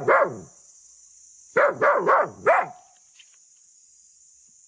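A dog barking: two barks at the start, then a quick run of four barks about a second and a half in.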